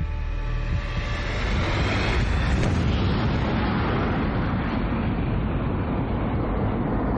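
Deep rumble of an atomic bomb explosion, swelling about two seconds in and then running on as a steady rush of noise.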